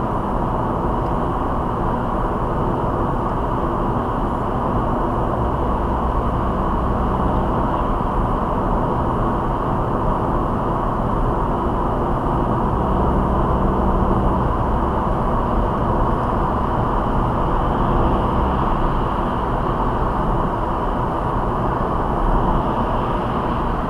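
Steady road noise of a small city car cruising at motorway speed, heard from inside the cabin: tyre and wind rush with a low engine drone underneath.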